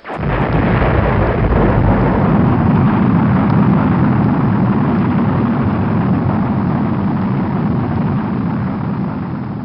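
A loud, steady rumbling noise that starts abruptly and begins to fade near the end.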